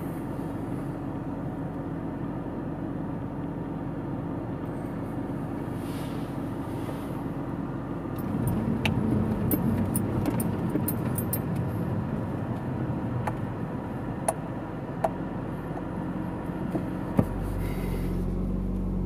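Audi RS3's turbocharged five-cylinder engine heard from inside the cabin, running steadily, then louder and rougher from about eight seconds in as the car drives off. A few sharp clicks are heard along the way.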